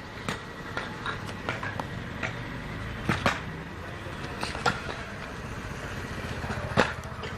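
Road repair work: irregular sharp knocks and clanks of tools or stones striking, about ten of them with the loudest near the end, over a steady low engine rumble.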